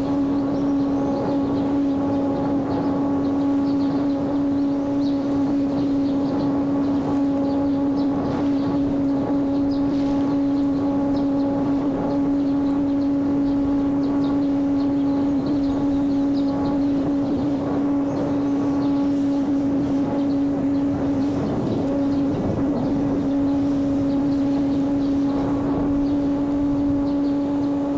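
Small electric motor and propeller of a homemade radio-controlled airplane droning at a steady pitch in flight, with rushing wind noise.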